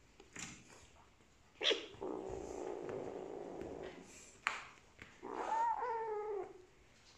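Kittens at play: two sharp taps, a steady rough rumble lasting about two seconds, then a drawn-out kitten meow that falls slightly in pitch.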